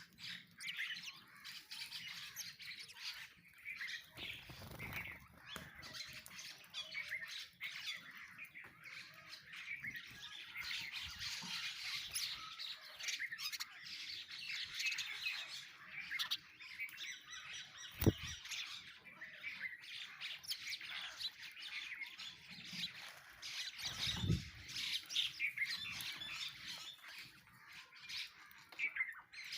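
A flock of sparrows chirping busily, mixed with harsher squawking calls of mynas. A single sharp click comes about eighteen seconds in, and there are a couple of dull low thumps.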